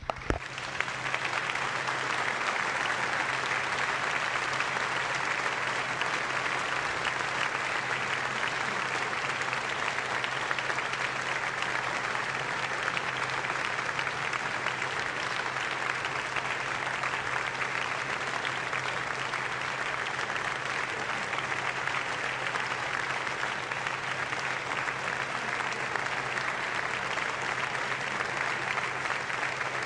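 Applause from a roomful of people, building over the first second or two and then holding steady.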